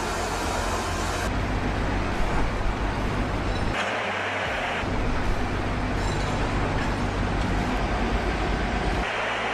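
Heavy vehicle engines running steadily with mechanical noise, heard over a series of short clips: the sound changes abruptly about four seconds in and again near the end.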